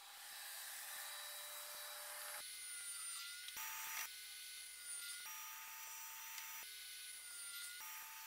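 Faint rubbing and handling of a wooden board sliding on a table saw's top as it is lined up, against a steady hiss; the saw is not running.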